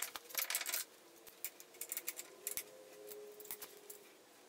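Light metallic clinks and taps of steel parts as a quick-attach A-frame is handled and fitted onto a compact tractor's front three-point hitch: a quick cluster in the first second, then scattered single clicks.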